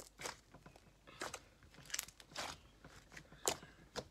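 Yellow banana split slime being squeezed and kneaded by hand, giving a string of short, irregular squelches.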